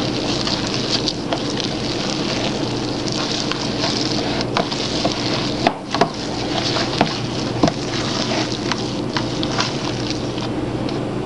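Rubber spatula stirring and folding a thick muffin batter with chopped nuts and fruit in a plastic bowl: a continuous wet scraping and squelching, with a few sharp knocks of the spatula against the bowl in the middle.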